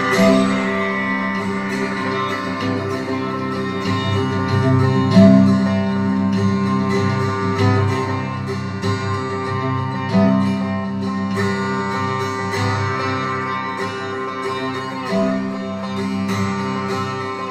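Sitar improvisation: quick plucked strokes over the ringing drone of its sympathetic strings, backed by cello, Irish bouzouki and darbuka (Turkish goblet drum). Long low notes come in about every five seconds.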